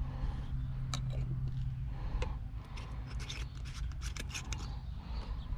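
Dauber cap of a metal can of PVC primer being fitted and twisted back onto the can: an irregular run of small metallic clicks and scrapes.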